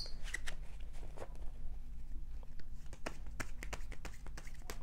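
Tarot cards being shuffled by hand, a run of soft, irregular clicks and taps as packets of cards are dropped onto the deck.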